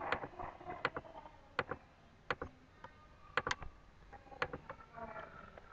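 A computer mouse clicking about ten times at uneven intervals, each click short and sharp.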